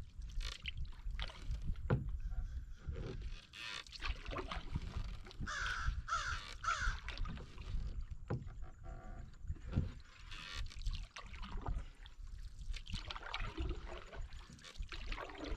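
Canoe paddle strokes in calm water, with drips and small splashes off the paddle. A bird calls about three times around the middle, and again near the end.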